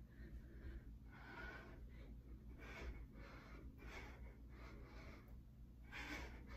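A woman's heavy, rhythmic breathing while doing wide squat jumps: faint, quick puffs of breath, about one every half second or so.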